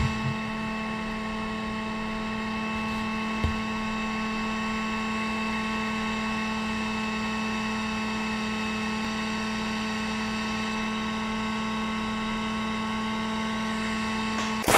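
Electric heat gun running with a steady hum, a small knock about three and a half seconds in; the hum cuts off suddenly near the end.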